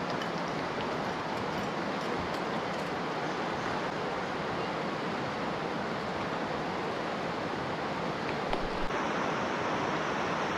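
River rapids rushing steadily over rocks: a continuous, even wash of moving water.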